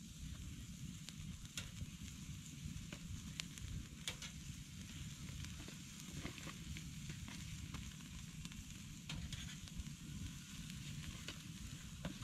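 Hamburger patties sizzling on a wire grill grate over an open wood campfire, with scattered sharp crackles from the burning wood over a steady low rumble.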